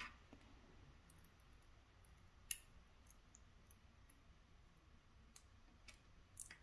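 Sparse, faint clicks of tiny lock pins and tools being handled and set down, with one sharper click about two and a half seconds in; otherwise near silence.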